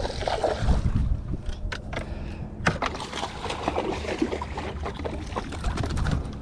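Water splashing and a scatter of sharp clicks and knocks as a hooked bluefish is brought up alongside the boat on a spinning rod.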